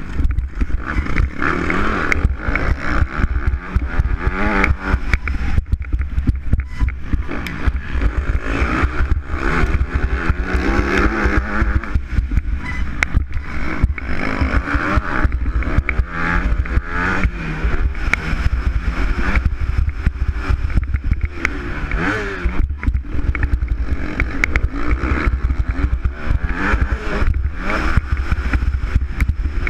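Motocross bike engine revving up and falling back again and again through the turns and straights, heard from on board the moving bike, over heavy low rumbling and frequent knocks and rattles from the ride over the bumps.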